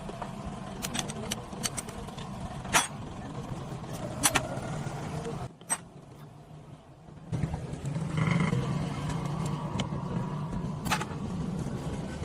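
Motorcycle engine running with a steady low hum and scattered sharp metallic clicks. The engine sound drops away for about two seconds midway, then comes back stronger.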